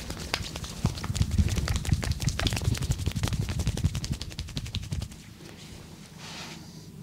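Rapid percussive massage on the body: hands tapping and slapping many times a second, with a low thudding under the strikes, stopping about five seconds in. A brief soft rustle follows about a second later.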